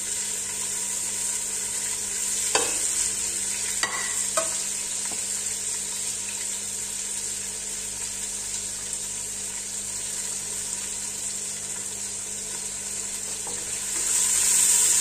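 Onion frying and sizzling in a little oil in an aluminium stockpot, stirred with a wooden spoon that knocks against the pot a few times in the first half. The sizzle grows louder near the end.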